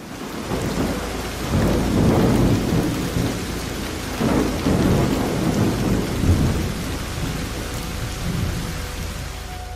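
Heavy rain falling steadily with thunder rumbling. The deep rumble swells twice, about two seconds in and again around five to six seconds in.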